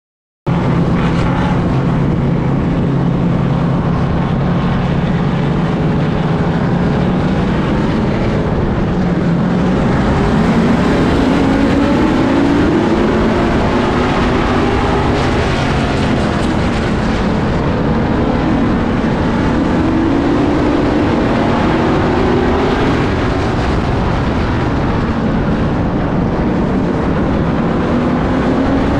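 Street stock race car's engine at racing speed, heard on board with heavy wind and road noise. Its pitch holds steady for the first several seconds, then rises and falls several times.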